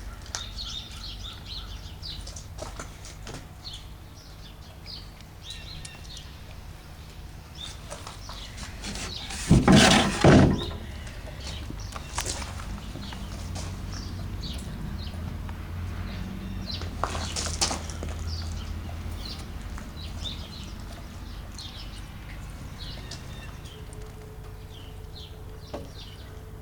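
Small birds chirping in short high calls, with a loud brief rush of noise in two parts about ten seconds in and a shorter one around seventeen seconds.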